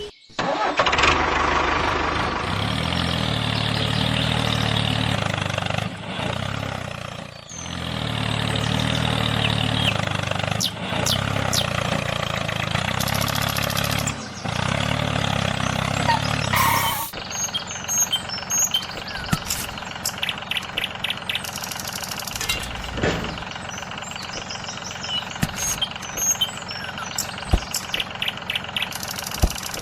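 Engine-like running sound of a miniature model tractor, steady for about seventeen seconds with two short dips, then cutting off. Scattered sharp clicks and taps follow through the rest.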